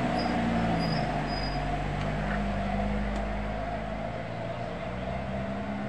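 A steady, low engine-like hum with a few held pitches, slowly fading.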